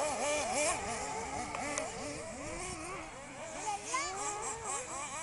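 Several 1/8-scale off-road RC buggies' nitro engines racing, high-pitched and overlapping, each one revving up and falling away again and again.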